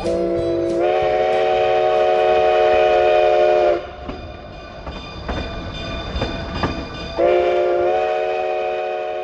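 Steam locomotive whistle blowing two long blasts. Each blast steps up slightly in pitch just under a second after it starts. Between the blasts there is low rumbling with a few knocks from the moving train.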